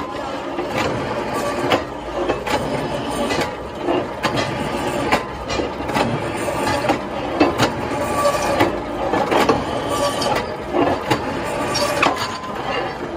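Drill press running, its conical cutter chamfering the bolt holes of a steel truck wheel disc, with frequent sharp metallic knocks as the plate is moved under the tool.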